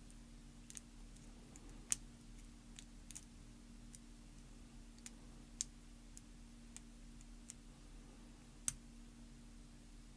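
Faint, scattered small metallic clicks of a lock pick working the pin tumblers in a Union ASSA ABLOY padlock's narrow Yale-type keyway, a few of them sharper and louder, spread irregularly through the stretch.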